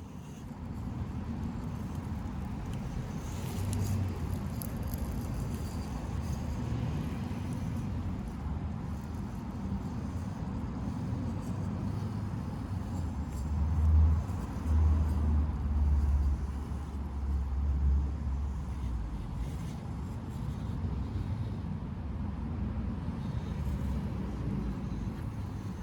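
Axial SCX24 1/24-scale rock crawler being driven, its small electric motor and drivetrain running under a steady low rumble that swells louder several times around the middle.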